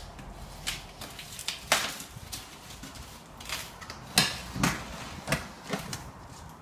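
Irregular scrapes, taps and rustles of a cardboard shipping box as packing tape on its top is picked at and cut, with the sharpest scrapes a couple of seconds in and about four seconds in.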